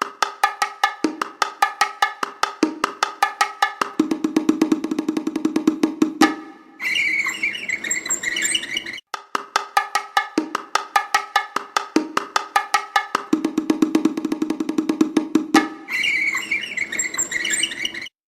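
A percussion instrument struck in a fast, even run of strokes, ringing on a few held pitches. The same passage plays twice, each time followed by about two seconds of a higher, trilling sound.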